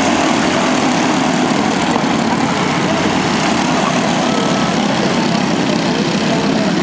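Small four-stroke racing engines of several mini sprint cars running on the oval, blending into a steady, unbroken drone.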